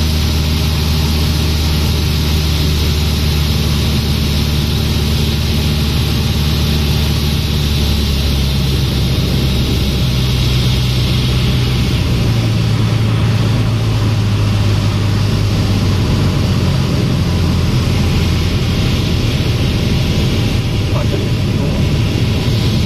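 Cessna 150's four-cylinder Continental O-200 engine and propeller droning steadily in the cabin, under a broad rush of wind noise. The engine note changes pitch a few times, as power is adjusted on the approach to land.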